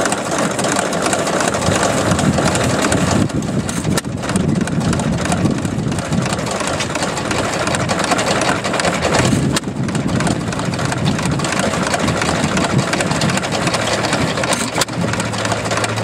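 Antique single-cylinder, hopper-cooled stationary gas engine with twin flywheels, running steadily.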